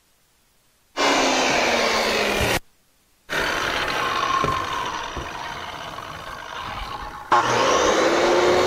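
Corded circular saw, blade set half an inch deep, cutting through half-inch plywood wall sheathing in three runs starting about a second in. The motor's pitch sags under load in the first run and climbs back up in the last.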